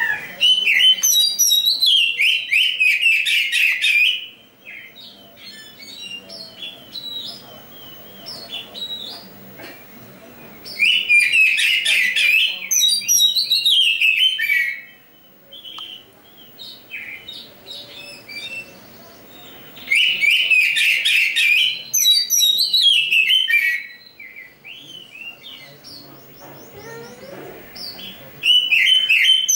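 Black-breasted oriental magpie-robin (kacer) singing in loud bouts of rapid, varied high notes, each about four seconds long and coming back roughly every nine seconds. Softer scattered notes fill the gaps between bouts.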